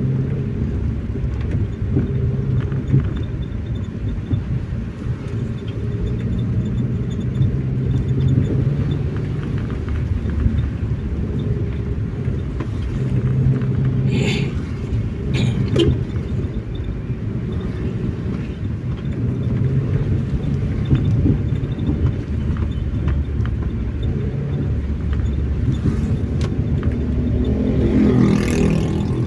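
A car driving steadily, its engine and road noise making a continuous low rumble. A few short clicks come about halfway through, and near the end there is a louder rising-and-falling swell.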